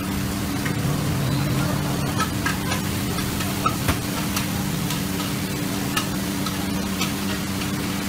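Noodles sizzling in a large wok over a gas burner as sauce is poured in, with a few sharp clinks of metal utensils against the wok over a steady low hum.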